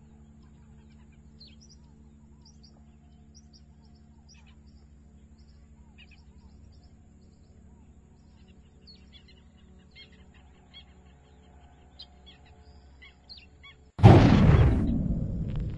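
Small birds chirping over a low steady hum. About 14 seconds in, a sudden loud rushing blast breaks in and dies away over the next couple of seconds. It is a sound effect for the terrier shooting off at superspeed.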